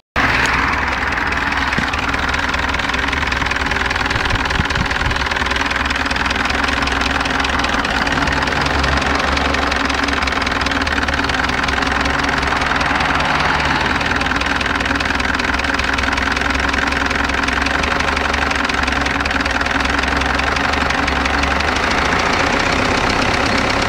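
GAZ-69's M-20 four-cylinder side-valve engine idling steadily and evenly while its carburettor idle is being adjusted. The pitch of the idle shifts a little partway through and again near the end.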